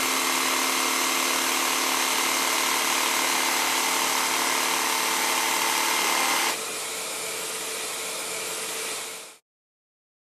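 Bosch jigsaw running and cutting through a wooden board: a steady, loud buzz with a constant whine. About six and a half seconds in, the sound drops and turns duller, then fades out a few seconds later.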